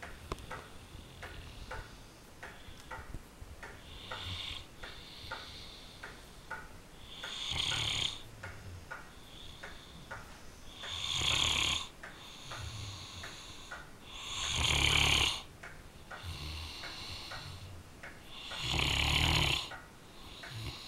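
A sleeping mastiff-type dog snoring, softly at first and then in four loud snores about every three and a half seconds, each a low rattling buzz with a breathy hiss lasting about a second. A light, steady ticking runs underneath, about twice a second.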